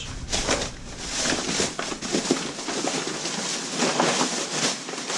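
Plastic trash bag rustling and crinkling as food is dumped into it, with many small crackles and light knocks.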